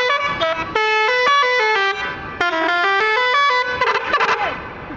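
Tourist bus telolet horns (multi-tone air horns) playing a melody of quick stepped notes in two phrases, with a short break about two seconds in. A fast warbling flourish closes it, cutting off about four and a half seconds in.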